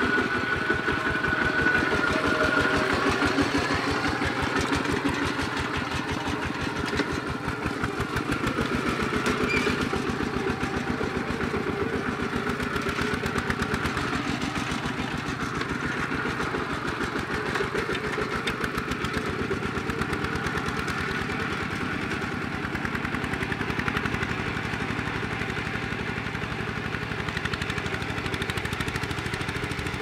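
Single-cylinder engine of a two-wheel walking tractor with cage wheels, chugging steadily under load as it plows wet paddy soil. It grows gradually fainter as the tractor moves away.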